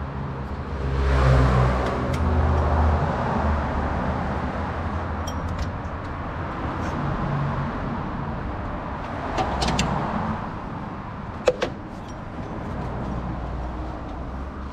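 Low vehicle engine rumble in the background, swelling loud in the first few seconds and then settling to a steady hum. A few sharp metallic tool clicks come in the second half, with the sharpest about two-thirds of the way through.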